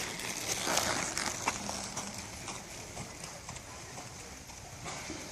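Horses' hooves striking the arena ground as horses move around the ring: irregular hoofbeats over a steady background hiss, with faint voices.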